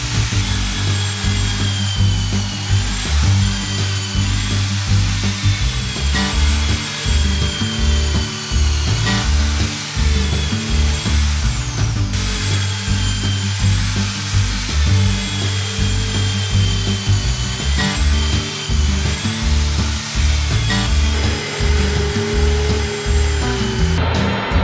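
Electric drill boring bolt holes through plywood gussets and timber boat frame. It runs in several passes, and its motor whine sags and recovers as the bit bites. Background music with a steady bass beat plays throughout and is the loudest sound.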